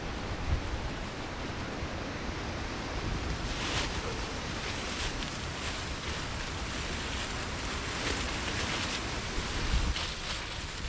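Strong wind gusting through the forest, with low rumbling wind buffeting on the microphone and a few brief brighter rushes as gusts pick up.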